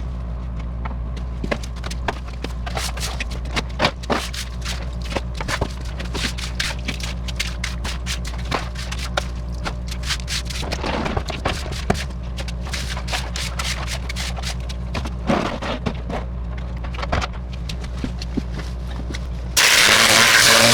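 Pressure washer running steadily with the spray off, with scattered clicks and scrapes. Near the end the turbo-nozzle spray starts again with a loud hiss.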